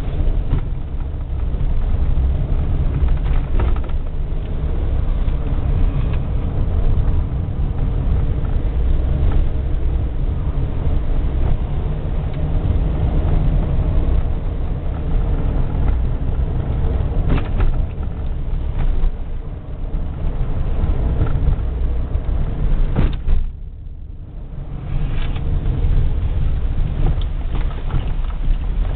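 Car driving on a winding mountain road, heard from inside the cabin: a steady low rumble of engine and road noise with a few knocks from bumps. The noise drops briefly about five seconds before the end.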